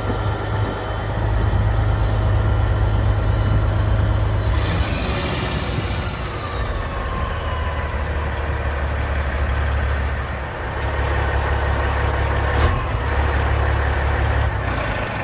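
Western Star crane truck's diesel engine idling steadily. About four and a half seconds in, a whine falls in pitch over a couple of seconds as the engine's note drops lower. A single sharp click comes near the end.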